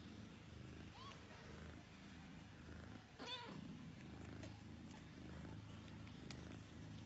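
Cats purring steadily while nursing a litter of kittens, with one short kitten mew about three seconds in and a couple of faint high squeaks.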